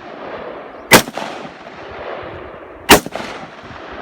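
Two gunshots about two seconds apart, each a sharp crack followed by a long echoing tail.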